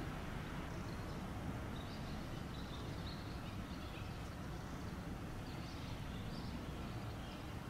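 Outdoor street ambience: a steady low rumble with faint, scattered bird chirps.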